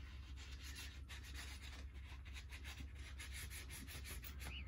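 Rag rubbing over the steel face of a small jeweller's anvil, polishing it in quick back-and-forth strokes.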